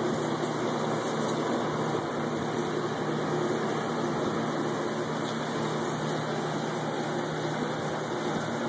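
Saltwater reef aquarium's pumps and circulating water: a steady hum under an even rushing hiss.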